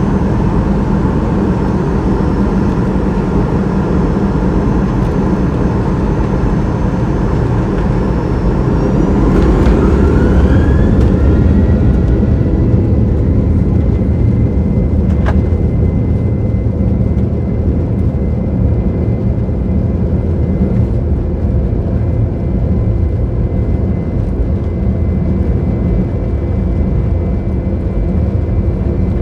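Boeing 737-800's CFM56-7B turbofan engines heard from inside the cabin, running with a steady rumble and whine. About nine seconds in the whine rises in pitch and the noise gets a little louder as the engines spool up, then it settles into a steady higher whine. A single short click comes about halfway through.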